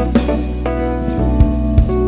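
Instrumental passage of a band song: a drum kit with cymbals playing over a steady bass line and held chords, with no vocals.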